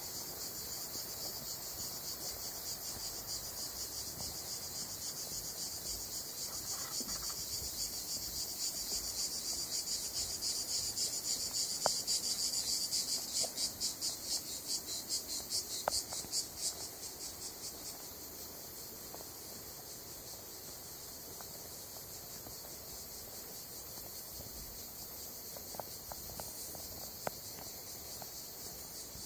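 A steady chorus of insects trilling high-pitched in the trees. It swells into a rapid pulsing for several seconds near the middle, then settles back.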